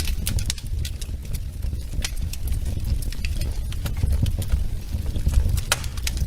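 Wood fire crackling, with irregular sharp pops and snaps over a low steady rumble; one louder pop comes near the end.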